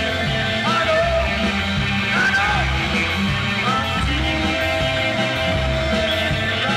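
Live rock band playing loud: drum kit and electric guitar, with a melodic line bending up and down over a steady beat.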